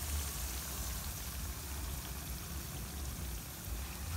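Plantain slices frying in hot oil in a frying pan: a steady sizzle with faint scattered pops, over a low rumble.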